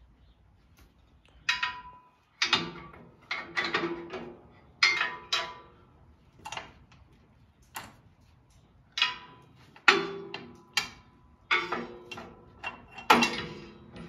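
Irregular metal clanks and clicks, about a dozen in all, some ringing briefly, as a steel manual top link is unpinned and taken off a tractor's three-point hitch. The loudest knocks come about ten and thirteen seconds in.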